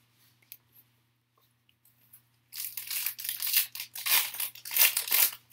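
Foil trading-card pack wrapper being torn open and crinkled by hand: a run of crackling and tearing that starts about two and a half seconds in, after a quiet start.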